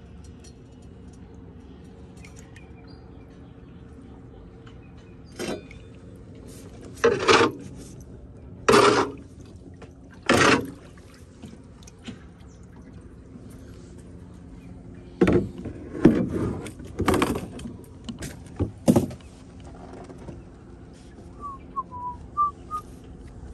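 Wooden paddle worked in the water beside a small skiff, each stroke a short loud splash: three about a second and a half apart, then a quicker cluster of five or six. A steady low hum runs underneath.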